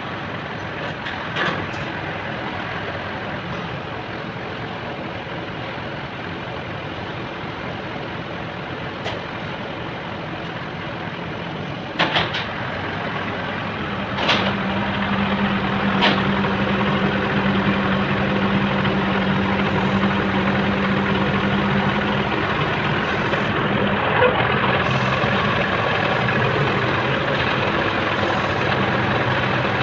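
Truck engine running steadily to power a truck-mounted crane's hydraulics. About halfway through it runs louder, with a steady hum, as the crane is worked. A few sharp knocks are heard.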